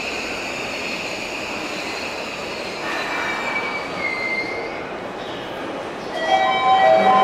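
A Seibu Ikebukuro Line electric train running through the terminal platforms, its wheels squealing steadily on the rails. Stronger, sharper squeal tones set in and grow louder about six seconds in.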